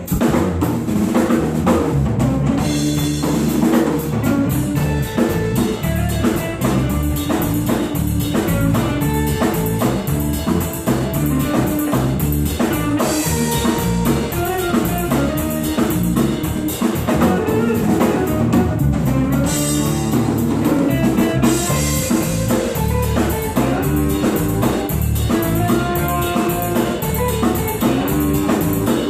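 Live band playing an instrumental passage on drum kit, guitar and bass, starting abruptly at the opening with a steady beat.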